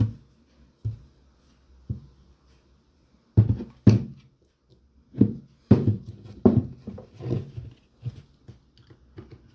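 Handling of a cordless trim router as it is taken apart by hand: a string of irregular knocks and clunks, with short quiet gaps between them.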